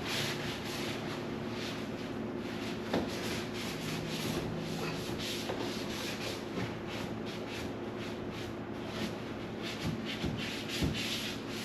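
Scrubbing and wiping a refrigerator's surfaces with a cloth or sponge, in quick repeated back-and-forth strokes, with a few light knocks.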